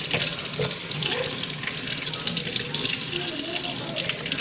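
Kitchen tap running steadily into a sink, water splashing and hissing.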